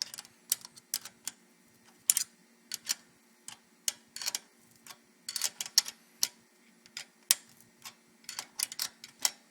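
A small metal wrench clicking against a nut and the steel springer fork bars as the last fork nut is tightened. The clicks are sharp and irregular, some single and some in quick clusters.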